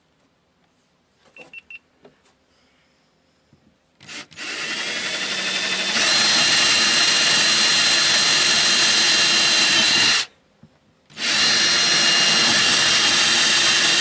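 Cordless drill boring into fibreglass, starting a hole at a corner of a hatch cut-out template. It builds up over a couple of seconds to a steady high whine, stops after about six seconds, and starts again about a second later.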